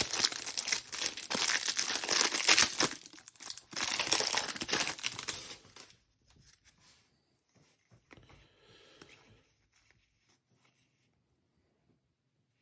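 Wrapper of a Panini Select trading card pack being torn open and crinkled for about six seconds, then only faint handling sounds.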